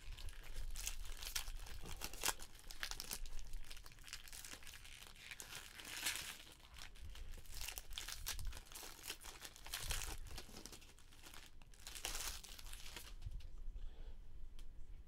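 Trading card pack wrappers torn open and crinkled by hand, a run of crackly rustles that falls much quieter about two seconds before the end.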